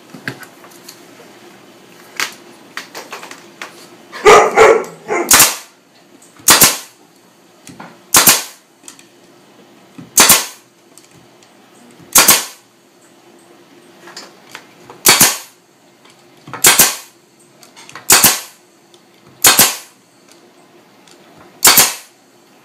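Pneumatic staple gun driving staples into the ends of wooden beehive frame bottom bars: about a dozen sharp shots, one every one to two seconds, with a brief cluster of knocks a few seconds in.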